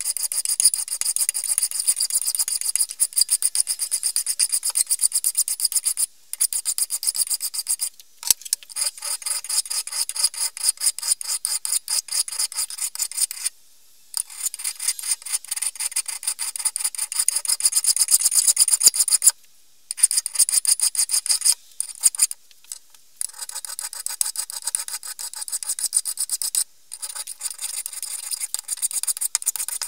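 A flat hand file rasping back and forth across the steel of a fireman's axe head clamped in a bench vise. It goes in quick, repeated scraping strokes, with a few brief pauses between runs.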